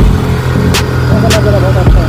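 Bajaj Pulsar NS200's single-cylinder engine running steadily while riding, with two short sharp clicks in the middle.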